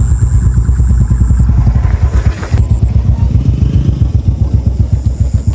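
An engine running with a steady, rapid low thumping.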